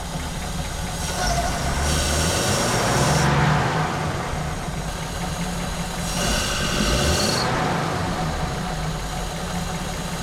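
A 1950 Pontiac Silver Streak's engine running on its freshly rebuilt carburetor, idling with a steady rumble and picking up briefly twice, about a second in and again past the middle, as the fuel-air mixture is being tuned.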